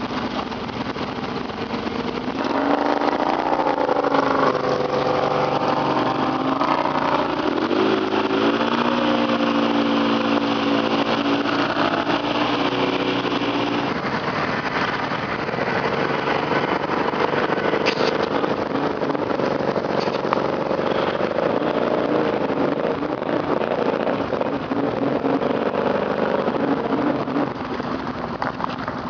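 ATV engine running under changing throttle, its pitch rising and falling as it speeds up and slows down, over a rough rumble of the machine moving along the trail.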